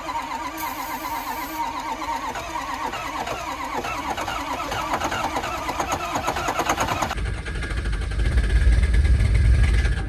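Ford Power Stroke diesel cranking on the starter in freezing cold, with a brief hiss of ether starting fluid sprayed into the intake about half a second in. About seven seconds in, this gives way to a loud, deep exhaust rumble from the tailpipe as the engine fires.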